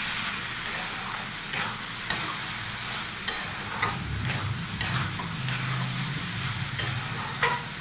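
Metal spatula stirring and scraping a thick mash of banana stem and potato in a metal pan, with a steady sizzle of frying in ghee underneath. The scraping strokes come about once or twice a second.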